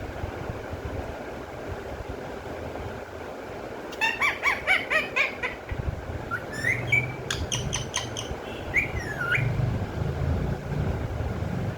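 Parrot chirping: a quick run of short chirps about four seconds in, then a few calls that glide up and down in pitch, over a steady low rumble.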